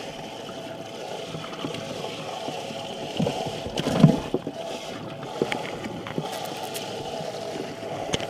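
Live-well discharge pump running with a steady hum as its water gurgles into a plastic weigh-in bag. Splashes and knocks come from hands working in the live well after a bass, loudest about four seconds in.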